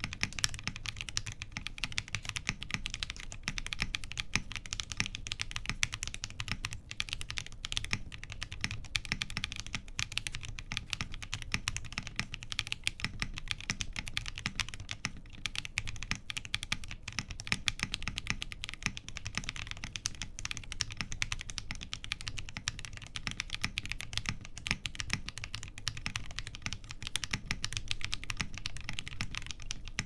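Rapid, continuous typing on a Ginkgo65 Pro custom mechanical keyboard: lightly lubed Cookies and Cream tactile switches in an aluminium plate on aluminium gaskets with no foam and a flex-cut PCB, under PBT keycaps.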